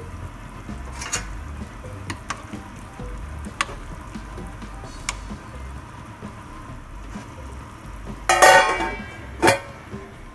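Pork-hock broth boiling in a pot with a steady bubbling hiss, broken by a few sharp clicks of a ladle against the pot. About eight seconds in, a stainless steel lid is set on the pot with a loud metallic clatter and ring, then one more clack.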